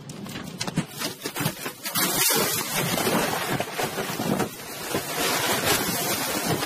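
Tornado wind blowing hard around a car, heard from inside, with rain and flying debris striking the glass and body in many small hits; the noise swells sharply about two seconds in and stays loud.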